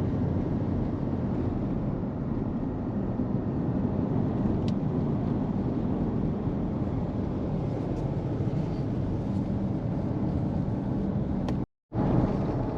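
Steady low rumble of a car's engine and tyres heard from inside the moving car. The sound cuts out completely for a split second near the end.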